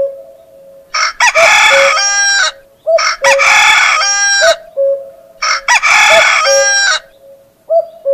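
Rooster crowing three times, each crow about a second and a half long and ending in a falling tail, over a steady tone.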